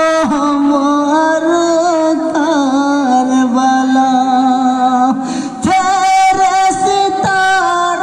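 A single lead voice singing a Bengali marsiya (a Muharram lament for the martyrs of Karbala) in long, held, wavering notes. It drops briefly about five seconds in, then starts a new, more ornamented phrase.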